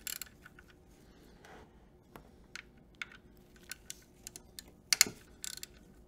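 Hand ratchet with an 8 mm socket backing out the oil filter housing cover screws: irregular light clicks of the ratchet and socket on metal, with one louder, sharper click about five seconds in.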